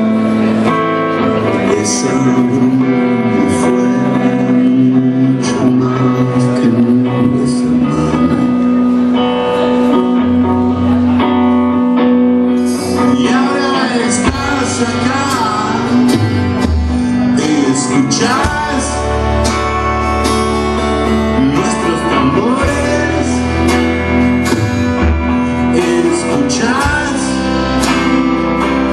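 A live rock band playing: electric and acoustic guitars, bass and drums, with a male voice singing. The bass gets heavier about halfway through.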